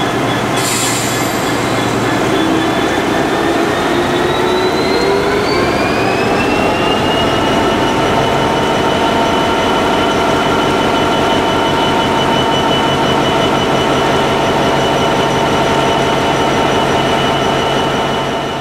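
Class 66 diesel locomotive's two-stroke V12 engine running at standstill with a steady whine; about two seconds in its pitch starts to rise, settling higher and steady by about seven seconds.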